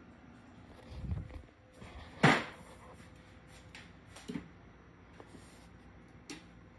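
A sharp knock about two seconds in, with a few fainter knocks and bumps around it against quiet room sound.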